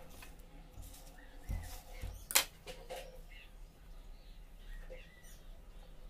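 Quiet hand handling of a guava cutting and a piece of banana, with one sharp click a little over two seconds in. Faint bird chirps sound in the background.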